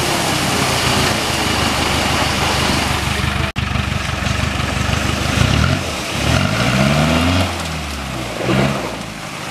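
Land Rover Discovery engine running under heavy load as the vehicle strains in deep mud with its wheels churning. Past the halfway point the revs climb and drop back a few times.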